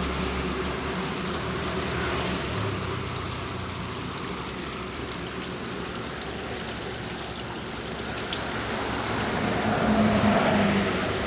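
Road traffic: vehicle engines running with a steady noise of passing traffic, and one vehicle swelling louder about ten seconds in.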